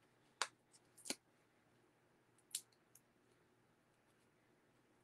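Near silence broken by three short, crisp crackles of paper and adhesive backing being handled: one about half a second in, one at about a second, and one about two and a half seconds in.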